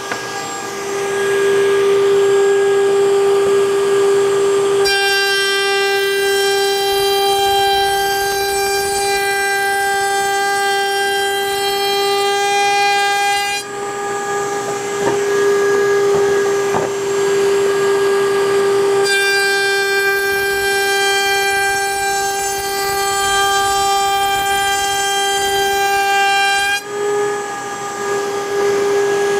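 Table-mounted router spinning a 3/8-inch roundover bit, a steady high whine, while a plywood panel's edges are fed past the bit to round them over. The sound turns fuller and harsher in two long stretches, about five to fourteen seconds in and again from about nineteen to twenty-seven seconds, as edges are cut.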